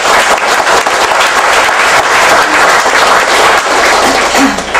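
Audience applauding loudly, the clapping dying away at the very end.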